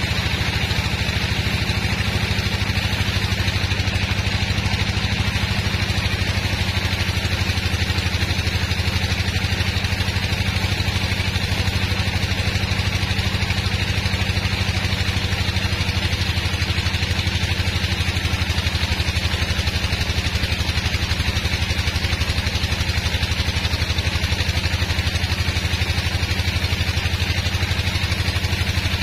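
Large band sawmill running steadily while sawing through a big hardwood log: an even, unbroken machine drone.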